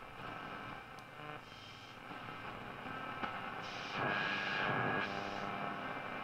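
Saba UW 175-Z tube radio's loudspeaker while being tuned across the medium-wave band: static and hiss with faint fragments of station audio. About four seconds in, a steady whistle rises out of the noise for about a second.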